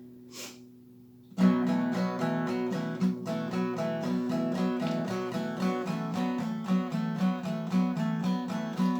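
Acoustic guitar: a chord rings out and fades, then about a second and a half in a steady rhythmic intro pattern starts and keeps going.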